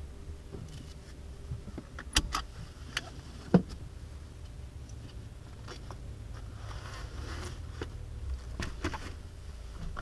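Driver pulling off racing gloves and a full-face helmet in a car cabin: a few sharp clicks and knocks from the gear, the loudest about three and a half seconds in, and a rustle of the helmet sliding off around seven seconds in, over a steady low hum.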